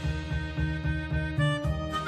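Background music with a quick, steady beat under held melody notes.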